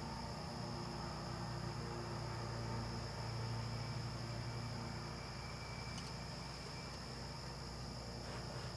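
Crickets trilling in a steady, unbroken high chorus over a low, steady rumble.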